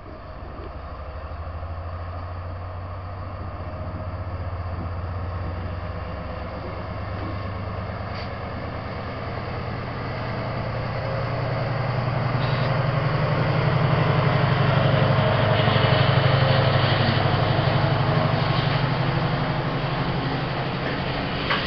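British Rail Class 70 diesel locomotive (GE PowerHaul V16 engine) running under power as it passes, its engine note climbing and getting louder over the first two-thirds, followed by the rumble and clatter of loaded ballast hopper wagons rolling by on the rails.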